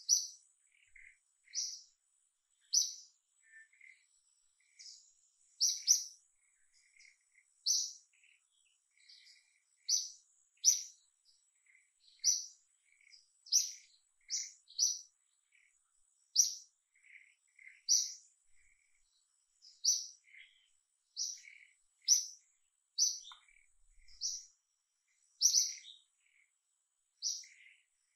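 A bird calling steadily with short, high chirps, about one every second or so, with fainter, lower chirps in between. A faint steady high tone runs underneath.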